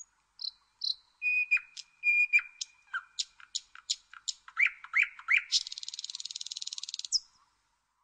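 Nightingale singing one long, varied phrase. It opens with a few short high notes, then a held whistle under a run of sharp clicks, then three rising notes, and ends in a fast rattle lasting about a second and a half.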